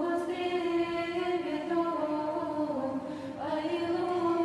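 Monastic choir of nuns chanting a psalm in Church Slavonic, holding long unaccompanied notes that step slowly down in pitch and lift again about three and a half seconds in.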